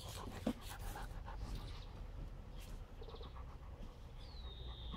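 A dog panting quietly. There is a faint knock about half a second in and a thin, high falling whistle near the end.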